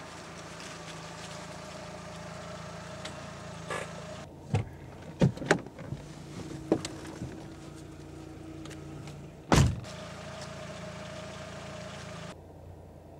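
Car engine idling steadily. About halfway through come several clicks and knocks, and a loud door slam follows about ten seconds in. Most of the sound drops away abruptly near the end.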